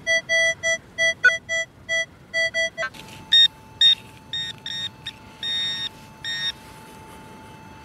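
Minelab metal detector giving a repeated target beep, about three to four a second, as its coil passes over a dug-out clod of soil holding a metal target. From about three seconds in, an orange Garrett pinpointer probing the clod beeps in short irregular pulses, one of them longer, over a faint steady tone.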